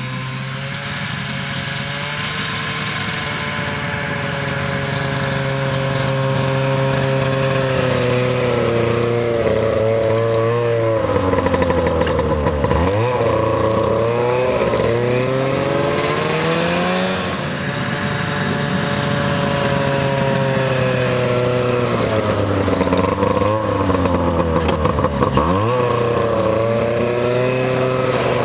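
Snowmobile engine running under load as it pushes a front-mounted snow-plow blade, growing louder over the first few seconds. Its revs fall and rise with the work, dropping sharply and recovering twice, about halfway through and near the end.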